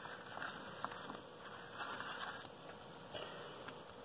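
Playing cards sliding and rustling across a cloth playmat as a ribbon spread is swept together and gathered up by hand, in several soft swishes.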